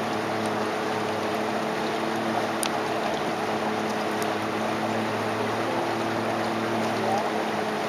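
Boat motor running at a steady hum, under a constant rush of wind on the microphone and water.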